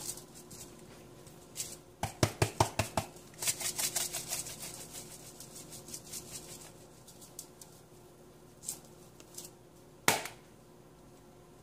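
A packet of seasoning mix being handled and emptied: a quick run of crackling taps about two seconds in, a denser patch of crinkling just after, scattered light ticks, and one sharp click near the end.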